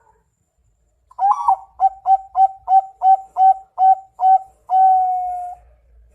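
Zebra dove (perkutut) cooing: starting about a second in, a quick run of about nine short clipped coos, roughly three a second, ending in one longer drawn-out coo.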